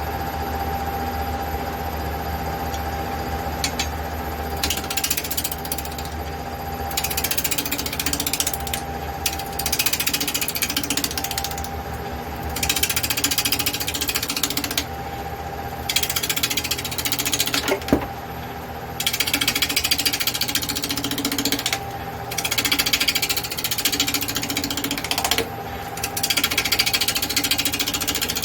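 Wood lathe running steadily with a constant motor hum while a turning tool cuts into a spinning red oak crotch bowl blank in repeated passes, each lasting a second or two, with a rapid rough chatter. There is one sharp crack about eighteen seconds in.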